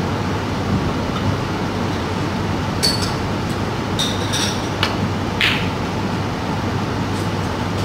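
Steady hum of room noise, with a handful of short, sharp clinks that ring briefly, about three seconds in and again between four and five and a half seconds.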